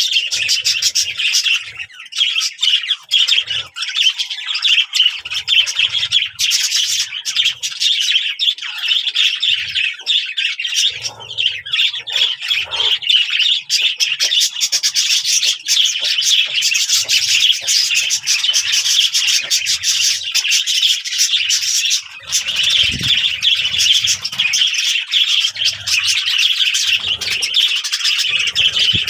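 Many small birds chirping and chattering at once: a dense, continuous chorus of rapid high calls with the odd harsher squawk, dipping briefly twice.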